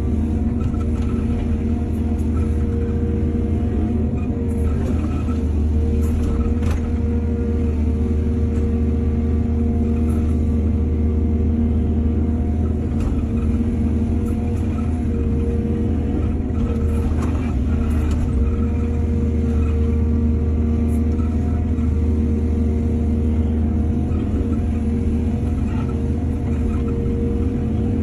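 Heavy diesel engine of an excavator running steadily under load, a low rumble with a steady hum, with a few brief knocks and clanks now and then.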